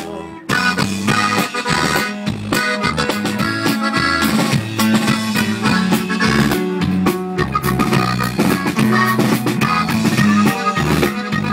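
Live band playing an instrumental break, an accordion carrying the melody over a stepping bass line and drums. The sound drops out briefly at the very start, then the band comes back in.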